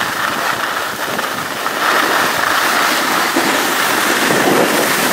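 Skis sliding over packed snow with wind rushing across the microphone while skiing downhill: a steady loud hiss that grows louder about two seconds in.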